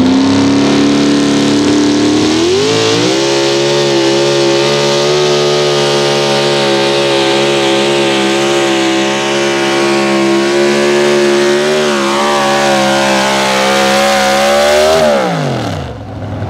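Super stock two-wheel-drive pulling truck's engine at full throttle pulling the sled. The revs climb about two to three seconds in and hold a steady high pitch for roughly twelve seconds, then fall away sharply near the end as the throttle comes off at the end of the pull.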